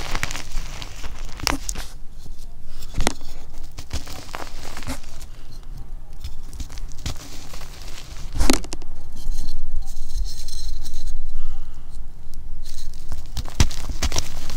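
Hands squeezing and crumbling soft reformed gym chalk in loose powder, a steady crunchy crackle, with a few sharp cracks as chunks snap apart.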